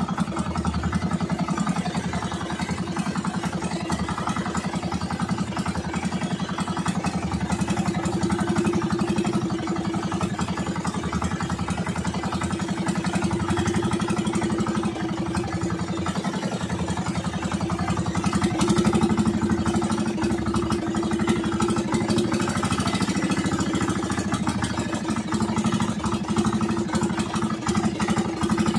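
Outrigger fishing boat's engine running steadily under way, its pitch holding even with no change in speed.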